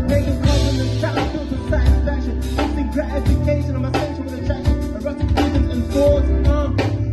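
Live band music at a hip-hop show: drum kit hits over long held bass notes, with guitar and a vocalist on a microphone over it, heard loud through the venue's speakers.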